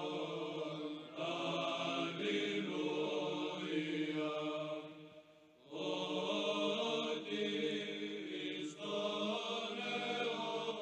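Slow chant sung by voices on long, held notes, pausing briefly about five seconds in.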